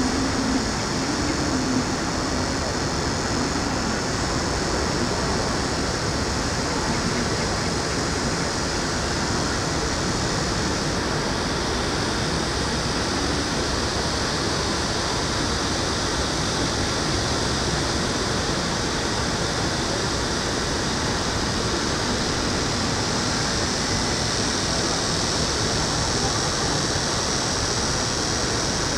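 Steady city ambience: an even rush of distant traffic with a high hiss above it that grows a little louder partway through.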